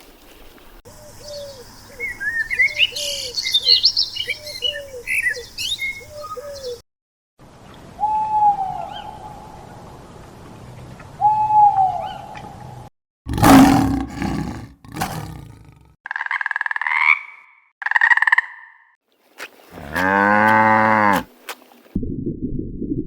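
A string of different animal calls, one clip after another with abrupt cuts, starting with birds chirping over repeated short calls, then several separate single calls, and a low rumble near the end.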